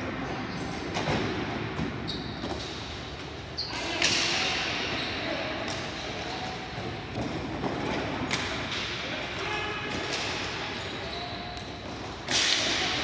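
Ball hockey play: sticks clacking on the plastic ball and the ball knocking against the boards, a string of sharp hits over steady background noise. There are louder hits about four seconds in and again near the end, with players' voices calling out.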